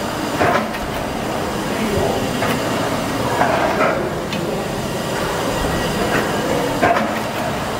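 A Ryhope steam beam engine running, its valve gear clacking with irregular sharp knocks over the steady noise of the working engine.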